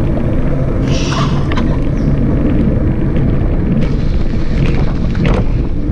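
Wind buffeting the microphone of a camera on a moving bicycle: a steady, loud low rumble with scattered clicks and rattles from the ride, and a brief high-pitched sound about a second in.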